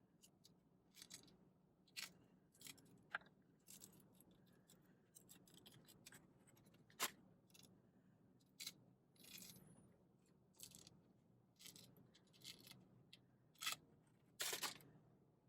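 A mandarin orange (a cutie) being peeled by hand: faint, irregular crackles and snaps as the peel tears away, with a longer rasp of tearing peel near the end.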